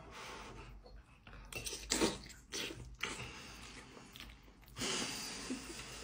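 A man chewing a mouthful of fresh pappardelle with meat sauce, breathing through his nose, with a longer breathy exhale about five seconds in.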